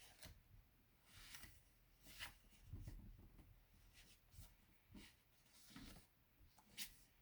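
Faint, scattered rustles and soft crinkles of a sheet of paper being handled and folded by hand.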